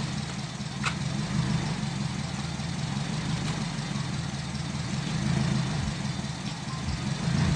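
Acura RSX (DC5) four-cylinder engine idling steadily, just after being started with a push-start button.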